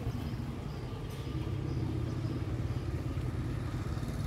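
A motorbike engine running steadily, a low even hum, with street noise around it.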